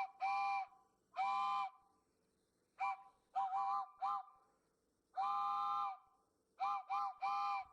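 Steam-style train whistle sounding a chord in a string of toots, some short and some longer, with the longest near the middle.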